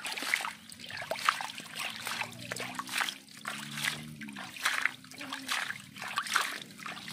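Water splashing and sloshing as a hand swishes muddy water through the bed of a plastic toy dump truck, in quick irregular splashes.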